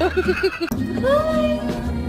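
Quick chuckling laughter, then a long drawn-out vocal note that glides in pitch, over background music.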